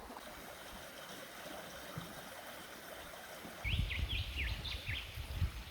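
A clear creek flowing steadily. About two-thirds of the way in, a bird gives a quick series of short, falling chirps, over a low rumble.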